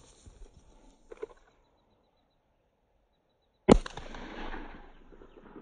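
A single handgun shot about three and a half seconds in, sharp and loud, followed by an echo that fades over a second or so. Faint rustling of gear comes before it.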